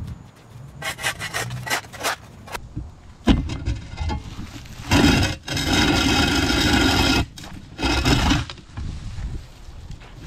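Steel square-point shovel scraping along a concrete sidewalk edge, scooping up dead leaves, soil and cut grass left from edging. A run of short scrapes, a sharp knock about three seconds in, then one long scrape of about two seconds and a shorter one.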